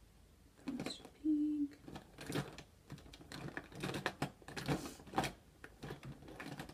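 Makeup products and their packaging handled on a tabletop: an irregular string of light clicks, taps and rustles, with a short steady tone about a second and a half in.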